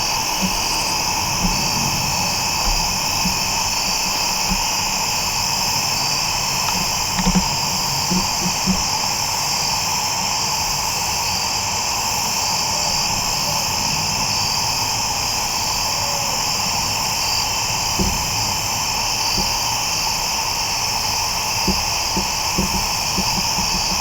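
Steady chorus of evening insects shrilling without a break, with a few faint low knocks scattered through it.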